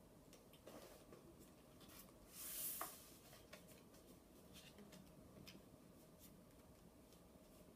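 Quiet handling of paper playing cards being sorted: faint light clicks and rustles, with one louder swish of a card sliding about two and a half seconds in.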